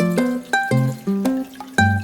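Background music: a tune of plucked notes over a bass line in a steady, even rhythm.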